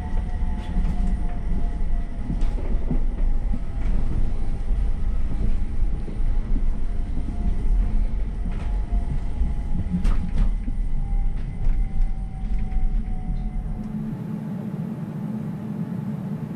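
Ride noise inside a CAF Urbos AXL tram on the move: a heavy low rumble from the running gear, a thin motor whine that slowly drops in pitch, and scattered clicks from the track. Near the end it cuts to a quieter, steadier hum with hiss.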